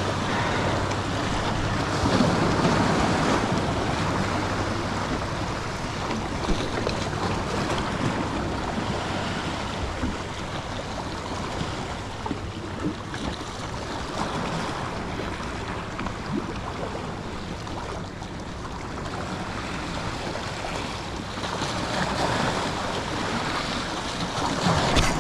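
Ocean surf washing and breaking against the stone blocks of a jetty. It swells louder about two seconds in and again near the end.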